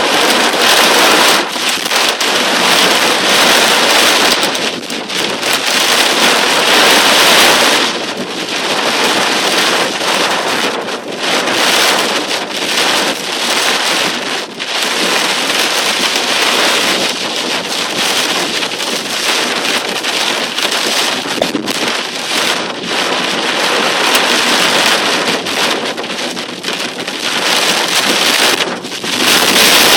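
Torrential cloudburst rain pouring down, a dense, loud hiss that swells and eases every few seconds.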